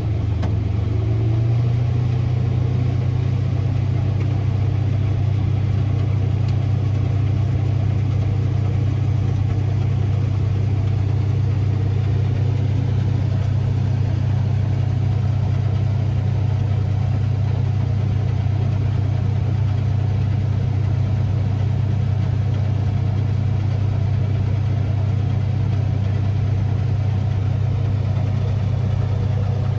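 Farm machine engine running steadily under load with a strong low hum.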